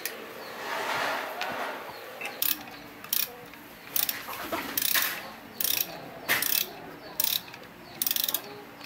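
Socket ratchet wrench clicking in short bursts, about one stroke a second, as it turns the hub nut on a motorcycle's spoked rear wheel. A short scraping noise comes before the first strokes.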